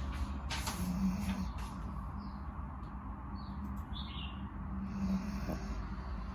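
A sleeping dog snoring, with two low snores about four seconds apart.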